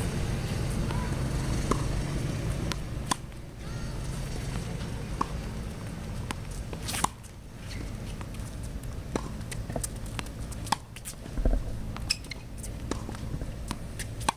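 Tennis ball struck by a racket and bouncing on a hard court: a sharp pop every second or two through a rally, over a steady low background rumble.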